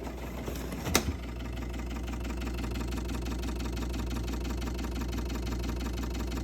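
KitchenAid refrigerator running with a steady mechanical hum and a fast rhythmic pulse, which starts just after a sharp click about a second in.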